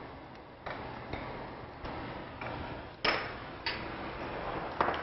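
Ceramic ramekins knocking sharply on a stone countertop, three times in the second half, over a steady hiss.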